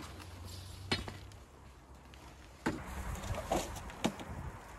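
Black plastic silage tarp being spread out and walked on: a few sharp crackles and snaps of the sheet, one about a second in and three more in quick succession past the middle, over a low steady rumble.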